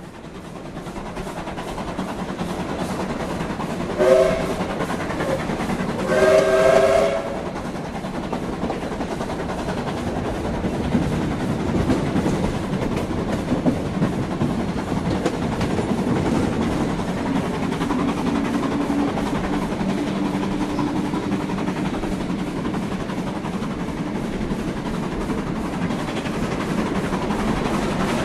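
Steam locomotive running with a steady rumble that fades in, and two steam whistle blasts, a short one about four seconds in and a longer one at about six seconds.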